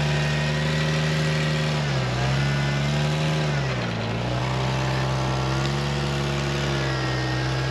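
Off-road vehicle engine running under load, its revs dipping and picking back up twice in the first half before holding steady.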